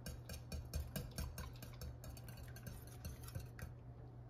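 Wire whisk beating eggs and cottage cheese together in a glass mixing bowl: quick, light clicks of the wires against the glass, about five or six a second, easing off near the end.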